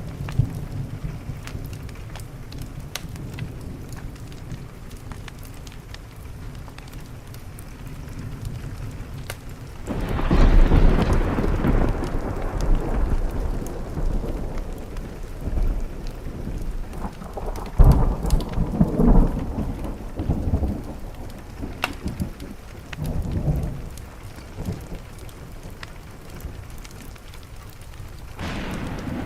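Rain pattering on a window with thunder: a loud rumble breaks out about a third of the way in and rolls away over several seconds, with more rumbles a few seconds later and another starting near the end. Under the rain, a wood fire crackles with fine pops.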